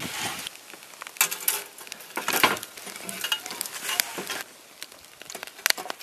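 Pork slices sizzling in an aluminium pot over a wood fire, with sharp crackles and light clinks now and then.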